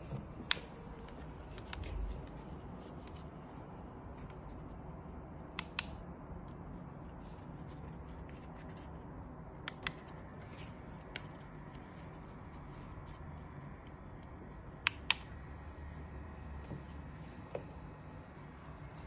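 Sharp clicks of buttons being pressed on a massage chair's wired remote control, several of them in quick pairs every few seconds, over a faint steady low hum.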